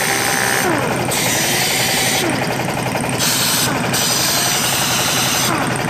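Old pneumatic impact wrench running free on low air pressure, its hammer mechanism rattling rapidly and steadily, with exhaust air hissing in several spells that start and stop.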